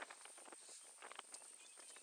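Faint, irregular crackling and rustling of African elephants stepping and scuffing through dry grass and brush, over a thin steady high-pitched whine.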